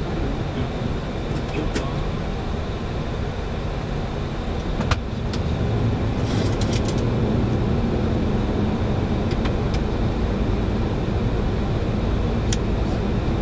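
Steady cockpit noise of a Boeing 737-800 descending on approach: a low rumble and rush of air and engines that grows a little louder about five seconds in, with a few short clicks over it.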